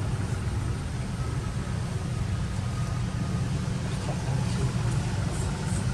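A steady low rumble under a faint even hiss.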